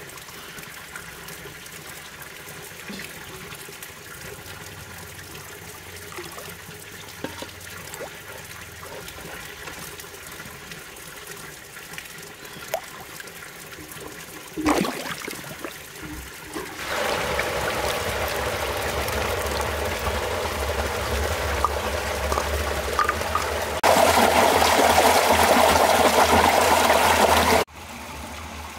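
Muddy pond water sloshing and trickling around hands working underwater, then a steady rush of water that gets louder in two steps, about halfway through and again near the end, before stopping abruptly.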